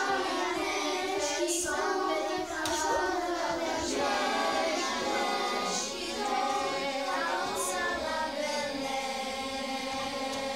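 A class of children singing a French song together as a choir.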